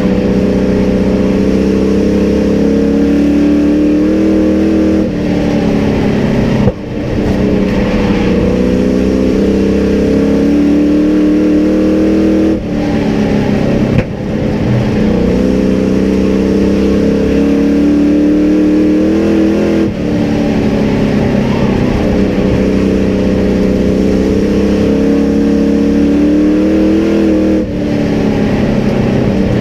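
Race truck's engine heard from inside the cab during a race, loud throughout. Its pitch climbs as it accelerates down the straights, then it lifts off sharply into each corner, about every seven seconds, before revving up again.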